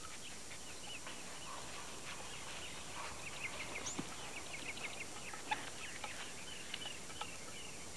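Coatis chirping: many short, high squeaky chirps, growing busier about three seconds in.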